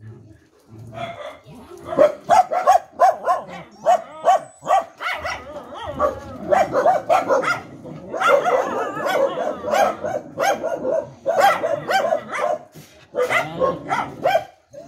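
A pack of penned dogs barking over and over. The barks are spaced out at first, then several dogs bark on top of one another almost without a break from about six seconds in.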